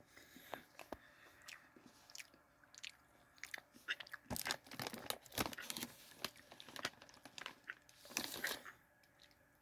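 A person biting and chewing crunchy Herr's bacon cheddar cheese curls: a run of crisp crunches, thickest in the middle and again in a short burst near the end.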